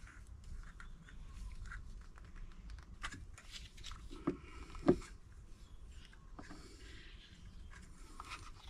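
Handling of a camp shower's plastic pump unit as its top is twisted off to reach the filter: faint rubbing and small plastic clicks, with a couple of louder knocks around four and five seconds in.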